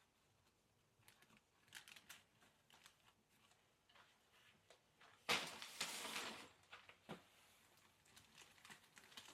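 Quiet handling of chair parts during assembly: scattered light clicks and taps, and a louder, noisy swish a little over five seconds in that lasts about a second.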